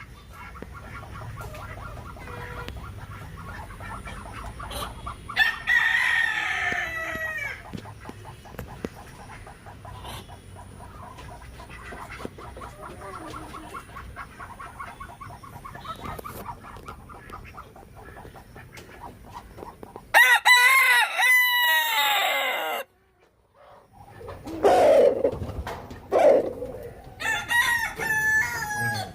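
Roosters crowing three times, each a long cock-a-doodle-doo that falls in pitch at the end, over steady clucking of chickens. The sound cuts out briefly about two-thirds of the way through.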